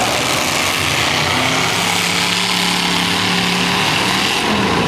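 Demolition derby cars' V8 engines running loudly, one holding a steady pitch through the middle of the clip, over a dense hiss of heavy rain.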